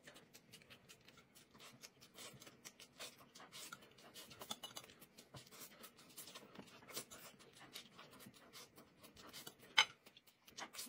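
Close-miked eating: a metal utensil scraping and tapping on a plate and soft chewing of rice mixed with chili sauce, a steady run of small clicks and scrapes with one sharper click near the end.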